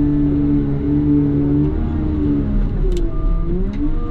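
CAT loader's diesel engine running, its pitch dipping and then rising again about three seconds in as the revs change. A short high beep starts soon after.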